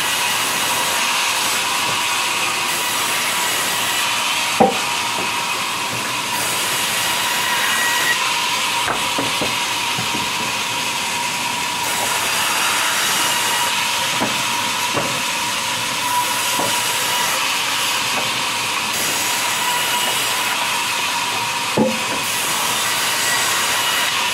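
Sawmill band saw running and cutting through logs fed by hand: a steady hiss with a thin, even whine. Two sharp knocks of wood stand out, about four and a half seconds in and near the end.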